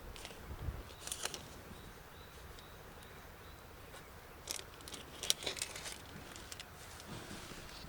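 A few faint, short clicks and light taps, scattered and irregular, over a low steady background hiss.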